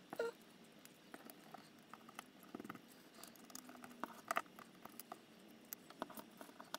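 Faint, scattered light clicks and taps of small aluminium servo brackets being handled and fitted together by hand, with a sharper cluster of clicks about four seconds in.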